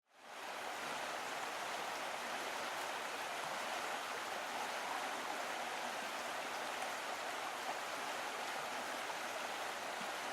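Steady rushing noise, like running water, that fades in within about half a second and then holds level.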